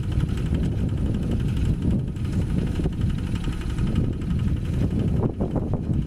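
Single-cylinder Kubota diesel engine of a Quick two-wheel hand tractor running steadily under load, a fast even chugging, as its cage wheels pull the plough through wet paddy mud.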